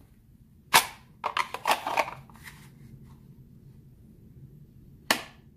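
Glock 17/22 pistol being handled in and out of a freshly formed holster: a sharp click about a second in, a short run of clacks and rubbing, then another sharp click near the end as the pistol snaps home. It is a good snap with a tight fit.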